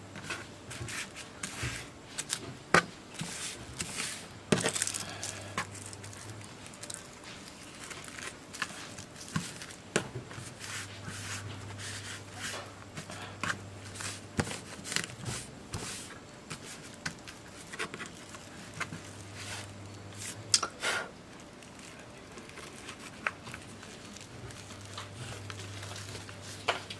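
Hands rubbing, pressing and wiping a tape-edged strip of flat lithium-polymer pouch cells on a wooden workbench: irregular rustling, crinkling and scraping with scattered sharp taps.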